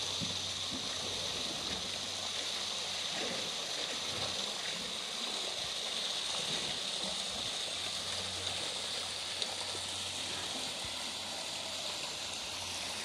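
Steady rush of running water in a polar bear's pool, with a single sharp click about nine seconds in.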